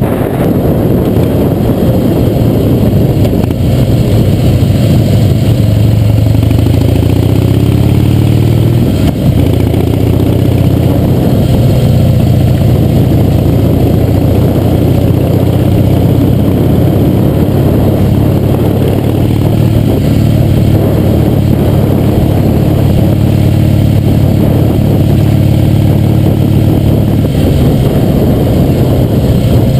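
Harley-Davidson V-twin motorcycle engine running under way, heard close from the front fender over road and wind noise. The engine note drops and then climbs again about six to nine seconds in, as the bike slows and pulls away.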